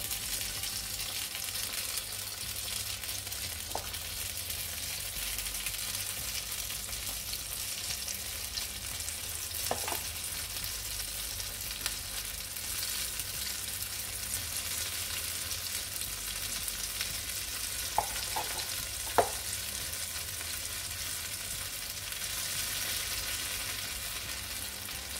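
Idli batter frying in hot coconut oil in the wells of an unniyappam pan: a steady sizzling hiss as each spoonful goes in. A few short ticks sound over it, the sharpest about two-thirds of the way through.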